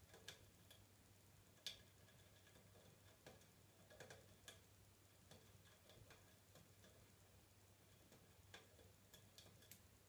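Budgie's beak tapping and nibbling at a wooden ladder and its pegs: faint, irregular clicks and taps, a few at a time with short pauses, several coming close together near the end.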